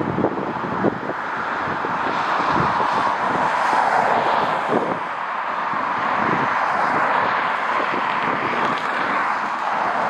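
Jet airliner's engines passing at the airfield: a broad rushing noise that swells over the first three or four seconds and then holds steady. Strong wind gusts buffet the microphone underneath it.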